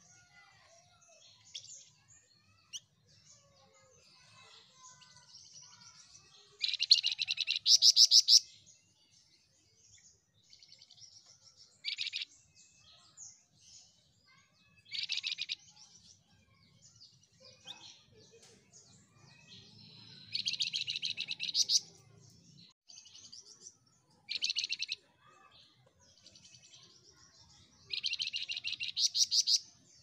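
A caged flamboyan songbird singing: six loud bursts of rapid trilled notes, each one to two seconds long, with softer twittering between them.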